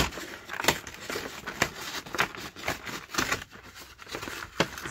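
Cardboard packaging being pried and torn open by hand: an irregular run of crackles, clicks and crinkles.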